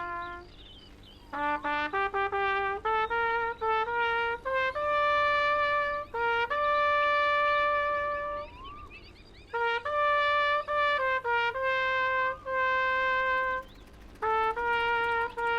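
Solo trumpet playing a melody in phrases of short tongued notes and longer held ones, with brief pauses between phrases.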